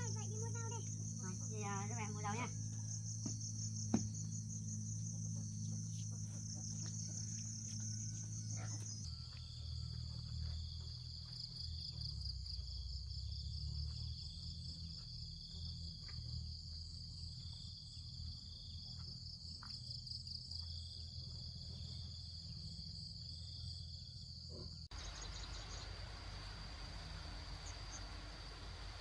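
Insects trilling in a steady, high-pitched chorus. The pitch of the chorus shifts about nine seconds in and fades into a hiss near the end.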